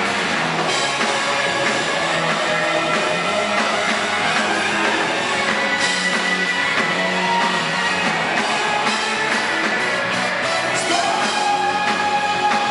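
Rock band playing live through a PA: electric guitars, bass, drums and keyboards, recorded from the audience, steady and loud with no pauses.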